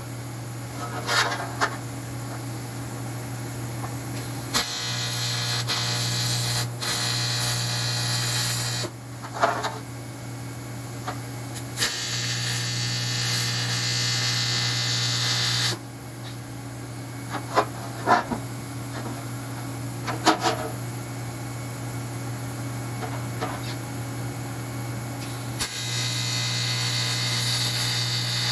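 Aluminum being arc-welded, in stretches of a few seconds of hissing, crackling arc that start and stop abruptly, over a steady hum from the welding machine. Between the welds come a few sharp clicks.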